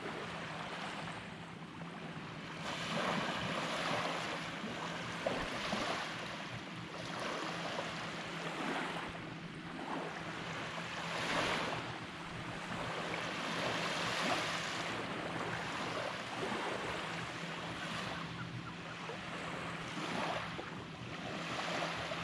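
Gentle surf washing onto a sandy beach, swelling and fading every few seconds, with a little wind.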